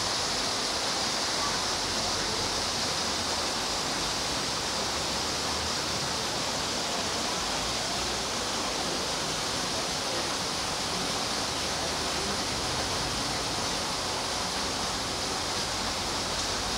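Steady, unbroken rushing noise, even in level throughout, with no distinct events.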